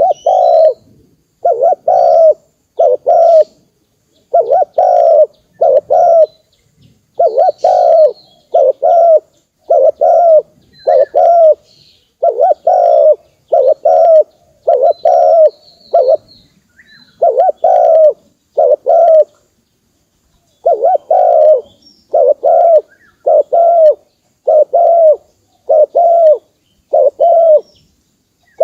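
Spotted dove cooing: a long run of short coos, about one a second, in phrases of two to four with brief pauses between them.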